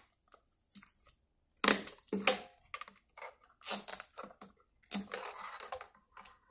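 Strong tape being pulled off its roll and wrapped around a thin plastic water bottle, in several short tearing pulls with crackles from the bottle, and a longer pull a little after the middle.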